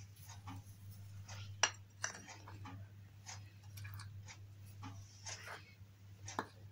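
Metal spoon stirring a dry flour, sugar and cocoa mix in a glass bowl: soft scraping through the powder with scattered light clinks of the spoon against the glass, two sharper ones about a second and a half in and near the end.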